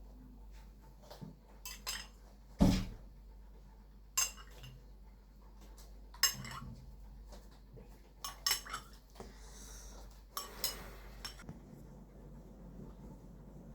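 Cutlery and dishes clinking and knocking in a kitchen: a scattering of separate sharp knocks, the loudest about two and a half seconds in, with a quick cluster a little past the middle.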